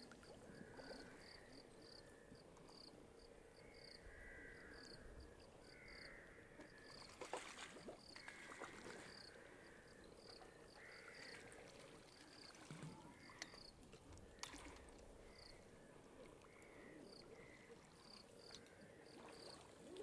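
Faint chirping of insects: a high chirp repeating about twice a second, with lower, uneven calls between. There are a few brief splashes from the hooked fish thrashing at the surface, around the middle.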